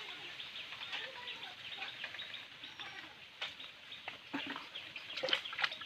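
Birds chirping steadily in the background, many short calls, with a few louder, sharper sounds near the end.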